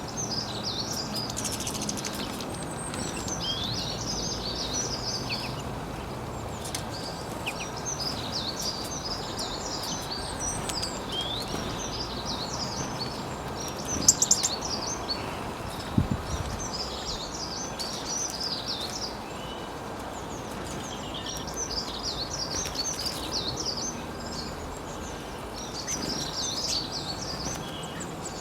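Songbird singing: bursts of rapid, high chirping phrases repeated every few seconds over steady outdoor background noise. A few sharp clicks and a knock about halfway through are the loudest moments.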